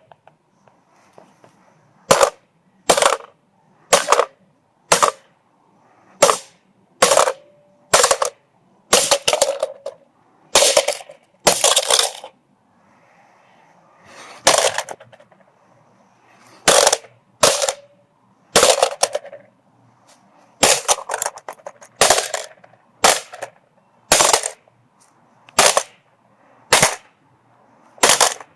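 A hammer repeatedly striking a cheap alarm clock, about one blow a second with a few short pauses. A few blows are followed by a brief ringing tone.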